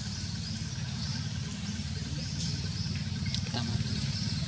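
Outdoor ambience: insects chirping in a high repeating pattern, about two chirps a second, over a fine steady trill and a low steady rumble. A few faint clicks come about three and a half seconds in.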